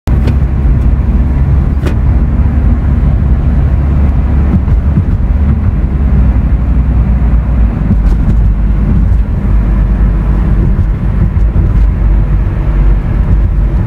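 Car driving along a road, heard from inside the cabin: a steady, loud low rumble of engine and tyre noise, with a few faint clicks.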